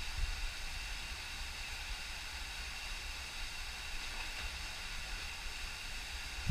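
Steady rush of a creek's flowing water in the canyon below, with a low rumble underneath.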